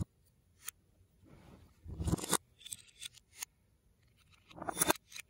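LEGO bricks and plates being handled and pressed together by hand: a few sharp plastic clicks, with two longer stretches of plastic-on-plastic rubbing and clicking, about two seconds in and near the end.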